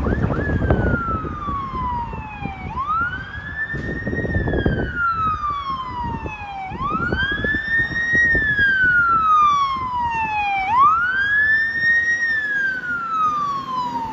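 Fire engine siren on a slow wail. Each cycle sweeps up quickly, then falls away over two to three seconds, about once every four seconds. Under it runs a rumble of engine and road noise that swells briefly near the start and again about four seconds in.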